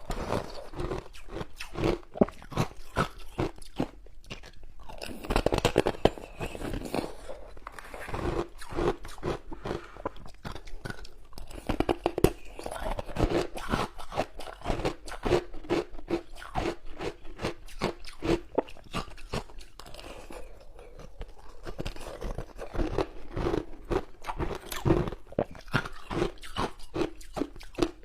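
Ice being bitten and chewed: dense, irregular crunching and crackling that runs on without a pause, with heavier bites every few seconds.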